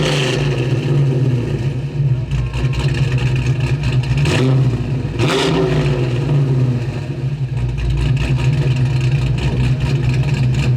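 A car engine running at a steady pitch, with two short sharp noises about four and five seconds in.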